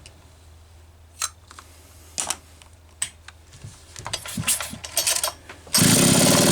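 Scattered clicks and knocks from handling a Pioneer P39 chainsaw, then near the end a loud rattling burst lasting over a second.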